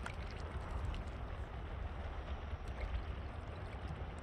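Wind buffeting the microphone outdoors: a steady, uneven low rumble with a hiss of moving air above it and a few faint ticks.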